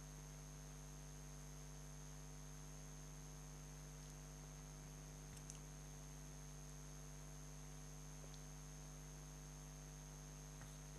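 Near silence apart from a faint, steady electrical mains hum with a thin high whine, picked up by the recording equipment. A single faint click comes about halfway through.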